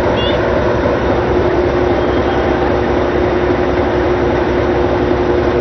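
Kalka-Shimla Railway narrow-gauge steam locomotive KC 520 working a train toward the camera, running steadily, with a steady tone that grows stronger about two seconds in.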